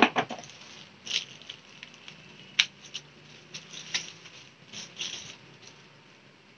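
Plastic bag crinkling and rustling as a laptop is slid out of its protective wrap, in a run of irregular sharp crackles that thin out near the end.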